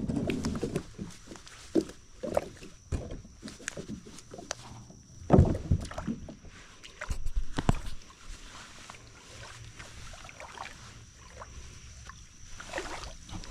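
Irregular knocks and bumps of movement and gear on a Hobie Outback fishing kayak on the water, with the strongest thump about five seconds in.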